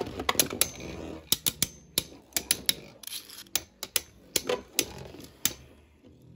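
Two Beyblade Burst spinning tops, Glyph Dragon against Rock Dragon, spinning in a plastic Beystadium and knocking into each other with quick, irregular clacks. The clashes thin out near the end.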